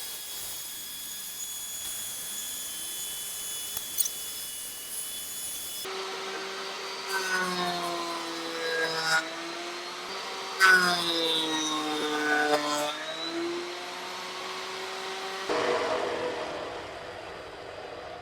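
Electric wood planer running, with a juniper log being fed through it: from about six seconds in, the motor takes on a strained hum that sags in pitch as the cutters bite into the wood, twice, then drops back to a plain running sound near the end.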